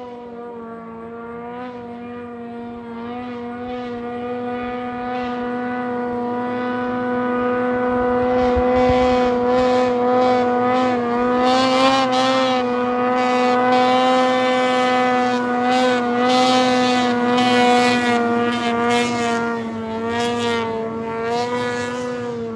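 Ski-Doo 600 RS race snowmobile's two-stroke engine held at a steady high pitch while the sled skips across open water. The engine grows louder through the first half as the sled comes nearer, then eases slightly near the end.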